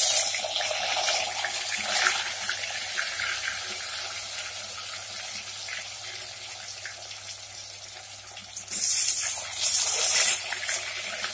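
Gatte (gram-flour dumpling pieces) sizzling as they deep-fry in hot oil in a kadhai. The sizzle slowly dies down, then flares up loudly twice near the end as more pieces are dropped into the oil.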